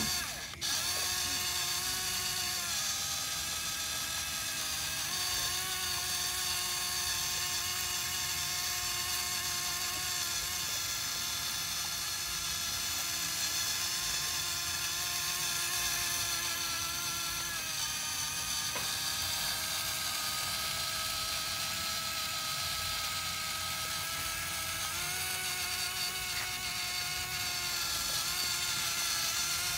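Small electric motor and gears of a toy RC tractor whining steadily as it pulls a loaded trailer, the pitch stepping down and back up a few times as the motor speed changes.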